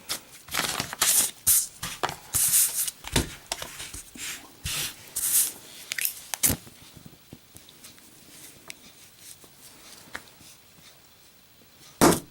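A lit Zippo lighter with a steel case and steel insert being handled and dropped in a drop test. Scattered clicks, rustles and knocks, with sharp knocks about three and six and a half seconds in and a loud clack near the end.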